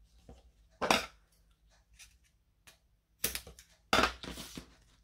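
2 mm foam tape being worked off its roll and cut to length: three short bursts of noise, one about a second in and two close together near the end.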